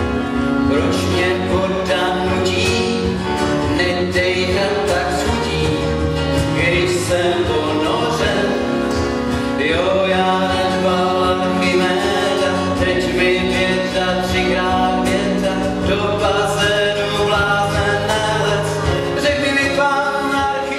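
A song from a stage musical: singing over instrumental accompaniment.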